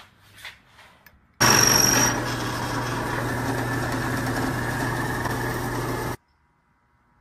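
A few light clicks, then about a second and a half in a drill press starts up and runs steadily for nearly five seconds, drilling a bolt hole through a wooden tiller handle. There is a brief high whine as it starts, and it cuts off suddenly.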